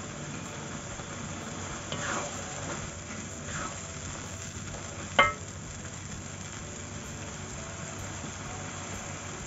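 Shredded cabbage sizzling in sauce in a wok while being turned with a slotted spatula, which scrapes across the pan a few times and knocks against it once about five seconds in.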